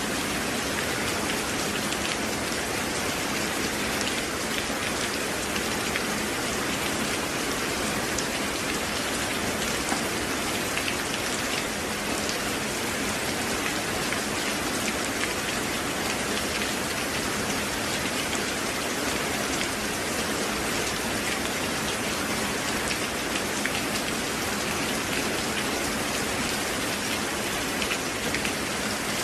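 Steady rain falling: an even hiss dense with small, scattered drop ticks, holding the same level all the way.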